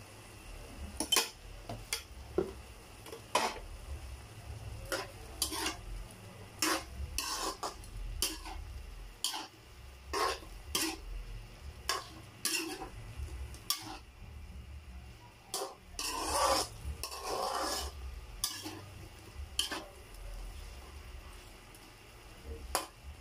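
Metal ladle scraping and knocking against an aluminium wok as shrimp in sauce are stirred, in irregular strokes about once or twice a second, with one longer scrape about two-thirds of the way through.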